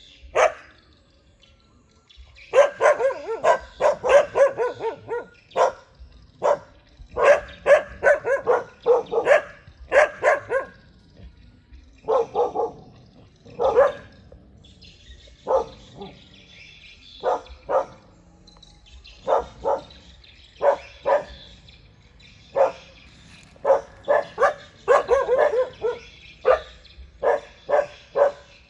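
Several dogs barking at strangers, territorial guard barking: single barks and quick overlapping volleys with short pauses, starting up again about two seconds in after a brief lull.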